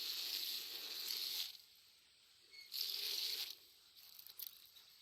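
Water spraying and pattering onto plants and dry soil as crops are watered, in two bursts: a longer one at the start and a shorter one about three seconds in.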